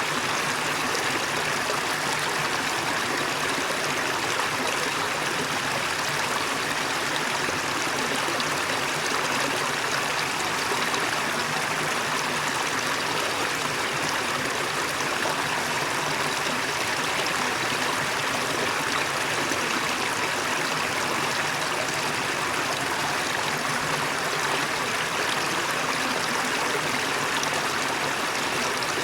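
Waterfall: steady rushing water, even and unchanging throughout.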